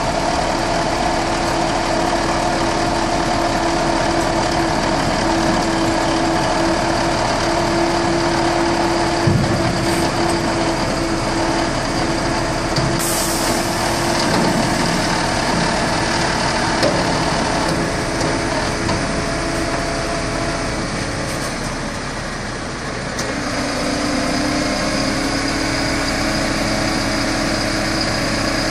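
Refuse truck's diesel engine running steadily at idle with a steady hum over it. A short hiss comes about halfway through, and near the end the hum drops to a lower pitch.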